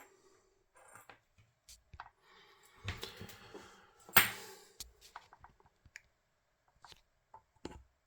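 Handling noises on a workbench: scattered small clicks and rustling, with one sharp knock about four seconds in.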